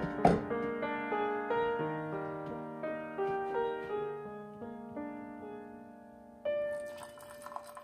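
Soft solo piano music playing as background. A short clatter sounds just after the start, and a hiss joins in about six and a half seconds in.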